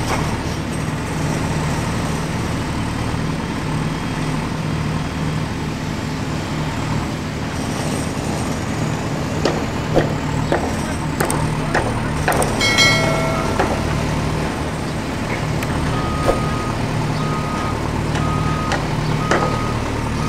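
Steady diesel-engine rumble from a Huina RC excavator's sound effects, with scattered light clicks. A short tone sounds about two-thirds through, and near the end four evenly spaced beeps like a reversing alarm.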